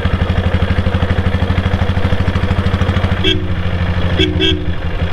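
Motorcycle engine idling with an even, rapid thump. Three short horn toots sound about three seconds in.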